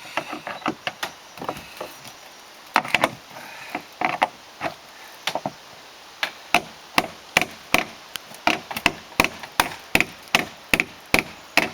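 Hammer blows knocking at a part during vehicle disassembly: uneven, scattered strikes at first, then from about six seconds in a steady run of about three blows a second.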